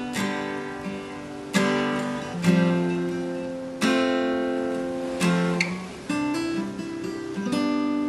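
Background music: an acoustic guitar strumming chords, each strum ringing out and fading before the next, about one every second or so.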